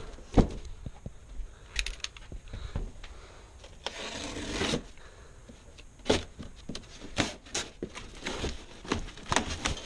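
Box cutter slicing through packing tape and cardboard on a large filter box, with scraping and rubbing of the cardboard and a run of short clicks and scrapes in the second half. A sharp thump about half a second in is the loudest sound.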